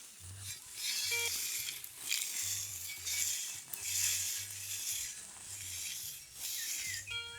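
A metal detector's search coil swishing through tall grass in repeated sweeps, about one a second. A short beep from the detector comes about a second in, and a low buzz comes and goes under the sweeps.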